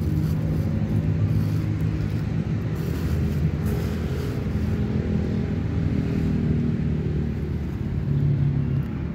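A steady, low engine rumble, like a motor vehicle idling close by. Faint crunching from a cat chewing dry kibble.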